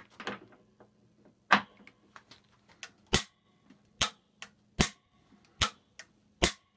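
Gedore Dremometer Type D torque wrench tripping again and again on a bolt: six sharp metallic clicks, each with a brief ring, the later ones under a second apart. Each click is the wrench's lever slipping and striking the aluminium body as the set torque is reached.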